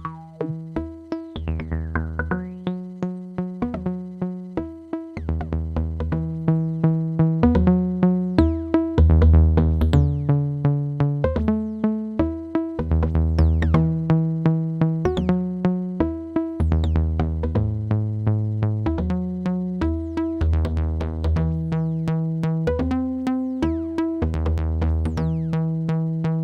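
Modular synthesizer sequence playing: a pulsing bass line that changes note every second or so, under a rapid run of short plucked electronic notes.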